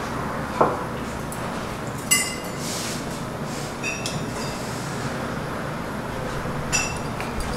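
A few light clinks of a utensil against a small porcelain cup and plates while a sushi chef dabs sauce onto pieces of fish: a dull knock about half a second in, then three short ringing clinks, over a steady restaurant room hum.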